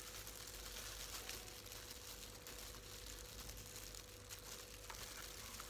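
Faint crinkling of disposable plastic gloves as sliced shallots and red onion are sprinkled by hand, over a steady low hum.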